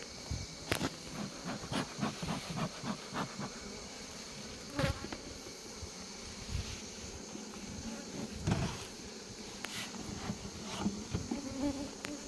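Honey bees buzzing steadily around an opened hive, with a series of short knocks and taps in the first few seconds and a few louder single knocks later.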